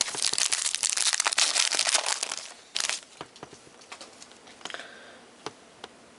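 Foil wrapper of a Panini Prestige football card pack crinkling and tearing as it is ripped open, with a short second crinkle about three seconds in. After that come a few soft clicks and rustles as the stack of cards is handled.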